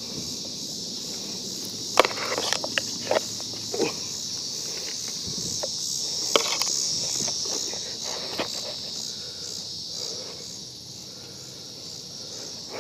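Footsteps, scuffs and sharp knocks, the loudest about two seconds in, as someone clambers off a rocky wooden barge onto the bank, leaning on a stick. Behind them, a steady high chorus of insects.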